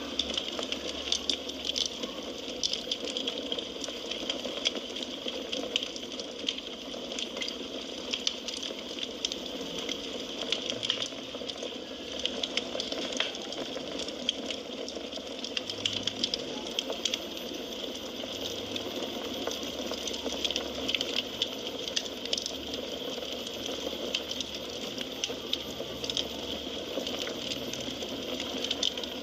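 Firewood burning in a fireplace: a steady hiss with frequent small crackles and pops.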